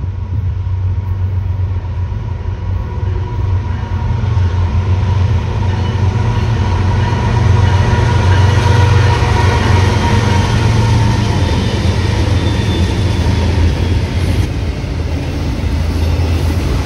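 A lash-up of BNSF diesel-electric locomotives at the head of a double-stack container train passes close by: a deep, steady engine rumble that grows louder as the units go past, then the train rolls on behind them.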